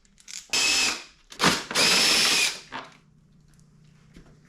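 Handheld power drill run in short trigger bursts: two main runs of under a second each, with a brief blip between them.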